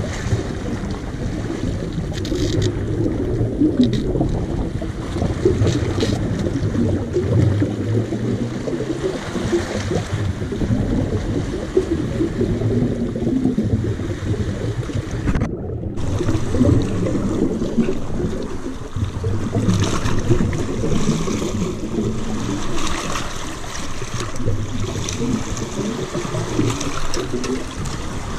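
Small waves washing and splashing against rocks at the water's edge, over a steady low rumble.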